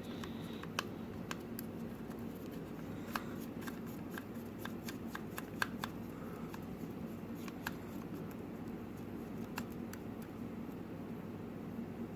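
Scattered light clicks and taps of a wireless computer mouse's plastic casing and parts being handled and fitted back together, over a steady low hum.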